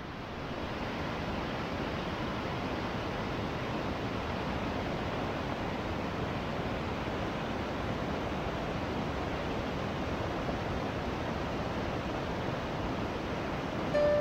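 Rushing water of a mountain stream's cascades and waterfall, a steady rush, running high after rain. A piano note comes in right at the end.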